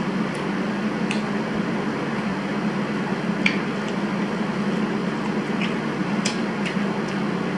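A steady background hum and hiss, like a room air conditioner or fan. Over it come a few faint, short, wet clicks of chewing and of fingers handling boiled seafood.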